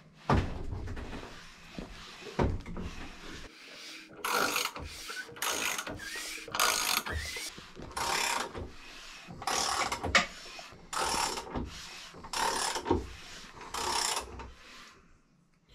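Freshly assembled Toyota 2JZ stroker short block being turned over by hand with a wrench on the crankshaft nose, a ratchet clicking through short strokes about once a second from a few seconds in. The new rotating assembly turns tight, as a brand-new engine does.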